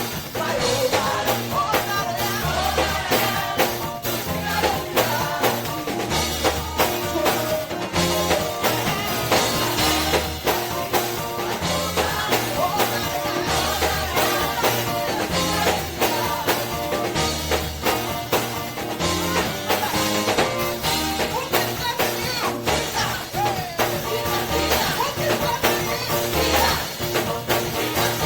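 Live upbeat gospel praise music: a band with drum kit and bass playing a steady driving beat while singers lead the song.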